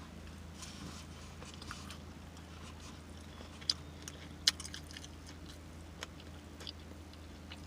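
Close-miked chewing and lip-smacking on a spicy fried chicken sandwich: scattered wet mouth clicks, two sharper ones near the middle, over a steady low hum.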